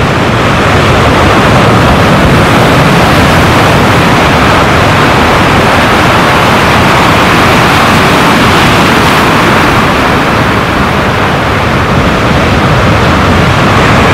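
Large ocean surf breaking and churning in whitewater close by, a loud, continuous rush of water.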